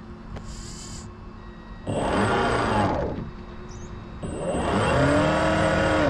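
Two long horn blasts from a model ship, the second longer, each sliding up in pitch as it starts and sagging as it stops, over a faint steady hum.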